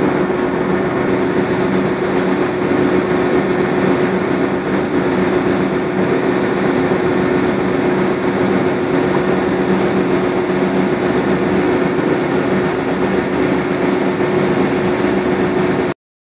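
Container ship's diesel engine running steadily, a low drone with a held hum over a broad hiss; it cuts off abruptly near the end.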